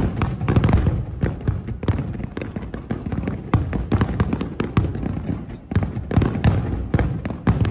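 Aerial fireworks going off in a rapid barrage: many shells bursting in quick succession, a dense run of bangs and crackle over a continuous low rumble.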